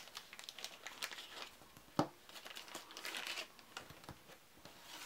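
Plastic wrapping crinkling and tearing as packs of game cards are unwrapped and handled, with one sharp knock about two seconds in.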